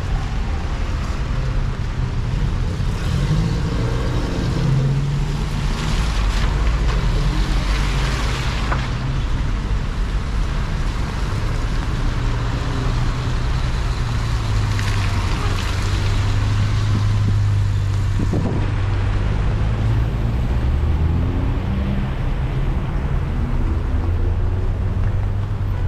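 Road traffic: a steady low engine rumble, with a rushing sound that swells and fades twice as vehicles go by.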